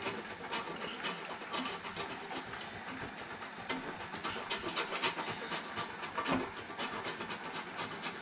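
A wedge of hard Parmigiano cheese scraped over a metal grater: a continuous run of quick, irregular rasping strokes.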